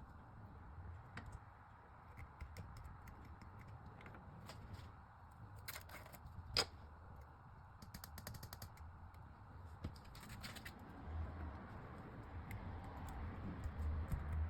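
Nano tape being handled up close: scattered sticky clicks and short runs of fine crackling as the tape is pressed and pulled apart, with one sharper click about six and a half seconds in.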